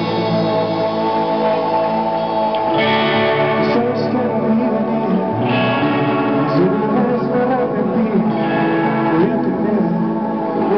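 Electric guitars played live through amplifiers, with held chords and notes ringing out.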